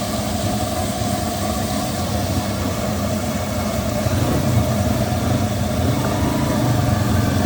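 A steady engine rumble like an idling motor vehicle, growing a little louder about four seconds in.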